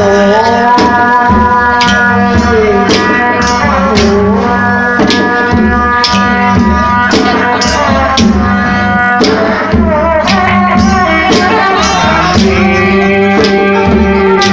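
Traditional music for a mamuat spirit-medium dance: a held, gliding melody line over a steady drone, with sharp percussion strokes keeping a beat.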